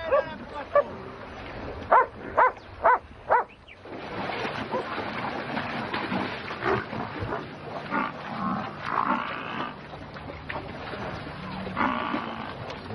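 A dog barks four times in quick succession about two seconds in. Then water buffalo wallowing in mud give a busy mix of splashing and low animal grunts.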